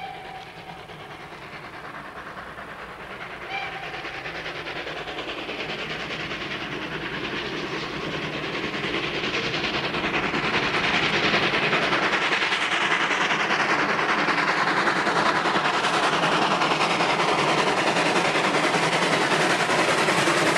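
Steam locomotive hauling a passenger train, approaching and passing close by, growing steadily louder. A short whistle blast sounds about three and a half seconds in, and near the end the coaches roll past with wheel clatter on the rail joints.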